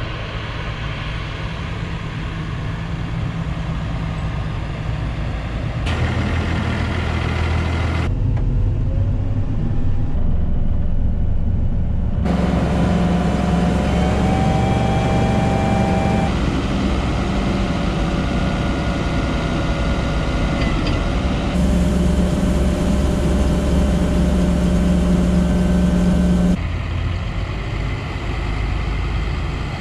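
Heavy farm machinery engines running steadily, heard as a string of short clips that cut abruptly from one engine sound to another every few seconds.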